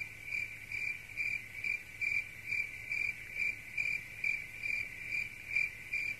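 Cricket chirping in an even rhythm, a little over two short, clear chirps a second, the insect chorus of an autumn night.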